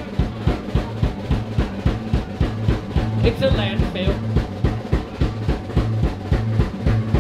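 Live band playing loud, with a drum kit keeping a fast, steady beat under electric guitars and a held low bass note.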